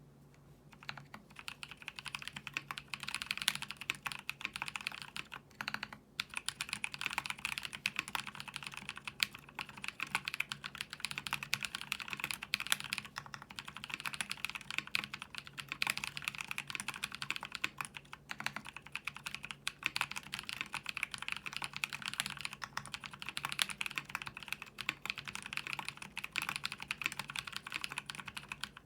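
Continuous fast typing on a custom mechanical keyboard with lubed YOK Holy Panda tactile switches, GMK keycaps and a polycarbonate plate: rapid key clacks, pausing briefly about six seconds in.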